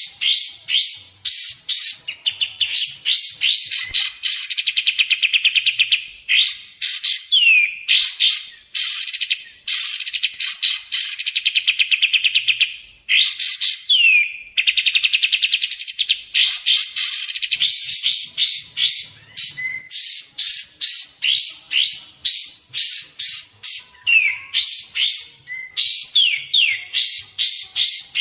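Kapas tembak, a bulbul, singing in quick runs of sharp, high, down-slurred notes, with a few longer rapid trills. This is the bird's song used as a lure and training recording.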